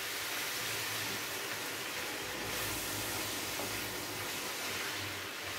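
Diced mixed vegetables sizzling with a steady hiss in a hot frying pan as they steam down, stirred with a wooden spoon.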